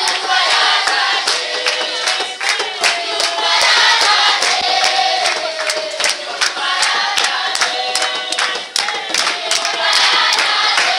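A large group of children singing loudly together, with sharp hand claps throughout the song.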